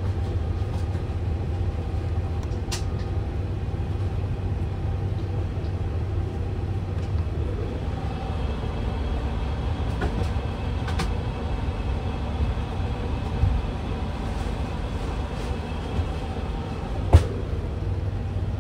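Steady low hum of an Airbus A350 cockpit with its aircraft systems powered, with a few sharp clicks, the loudest near the end.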